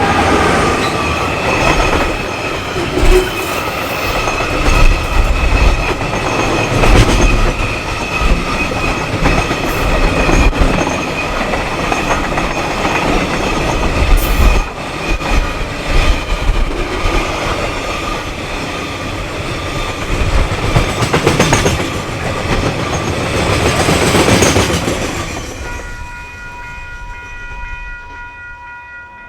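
Freight train wagons rolling past close by, with irregular clacking of wheels over rail joints. The sound fades out near the end as the train moves away.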